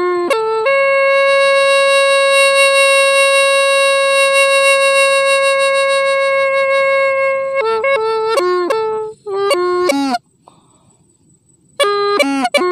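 Hmong raj le pipe playing a melody: a few short notes, then one long held note for about seven seconds, then a quick run of short notes that bend down in pitch. It stops for over a second, and the melody picks up again near the end.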